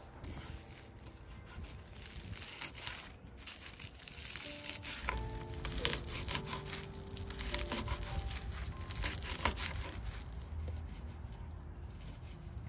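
Knife chopping dried patience dock leaves on a wooden cutting board: a rapid run of dry, crisp crunching and crackling cuts, thickest in the middle and thinning out toward the end.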